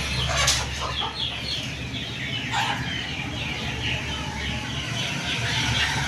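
Young chickens peeping over and over: short, high, falling cheeps, several a second.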